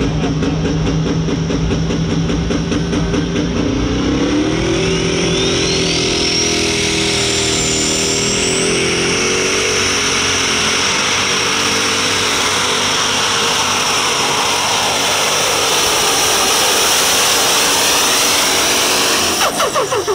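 Pro Stock pulling tractor's turbocharged diesel engine under full load on a pull. The engine note climbs about four seconds in, a rising whine follows over the next few seconds, and it then runs flat out before the sound drops sharply near the end.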